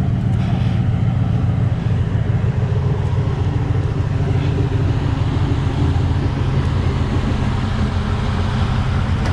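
Off-road vehicle engine idling steadily, a constant low-pitched running sound.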